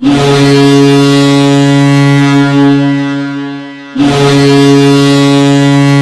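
Iowa Heartlanders hockey goal horn blowing two long, loud, steady blasts, signalling a goal: the first lasts about four seconds and tails off, and the second starts straight after it and is still sounding at the end.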